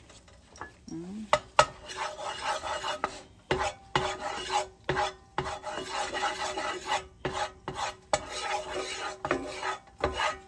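A wooden spatula scraping and rubbing across a nonstick frying pan in quick back-and-forth strokes, with sharp knocks of the spatula against the pan. The strokes start about a second in.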